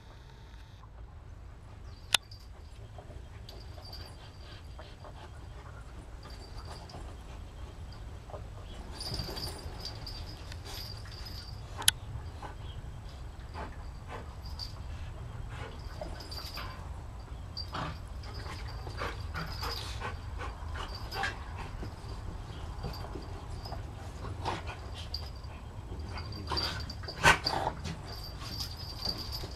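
Two dogs, a Rhodesian Ridgeback and a white dog, play-fighting on a sofa: scattered soft dog vocal sounds and mouthing and scuffling, busier in the second half, with a louder flurry near the end. A steady low hum lies underneath, and there are two sharp clicks, one about two seconds in and one about twelve seconds in.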